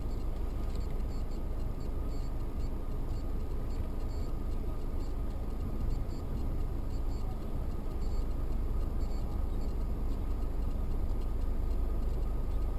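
Steady low rumble of a Mercedes-Benz car's engine and tyres on a wet road, heard from inside the cabin through a dashcam, with a thin steady hum and faint scattered ticks over it.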